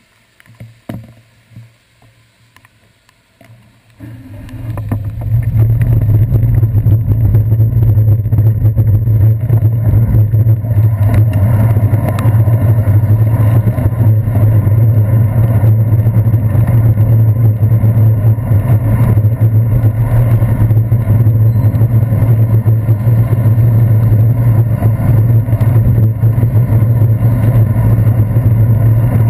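A few light knocks, then from about four seconds in a steady, muffled rumble of a bicycle riding on wet pavement, heard through a handlebar-mounted camera: road and wind noise on the mount.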